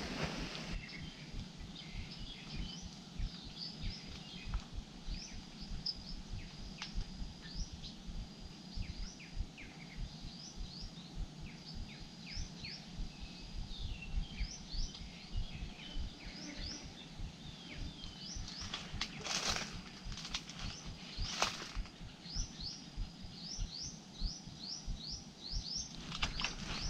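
Small birds chirping over and over in short, high notes, over a low buffeting noise on the microphone. Two brief rustles come about twenty seconds in.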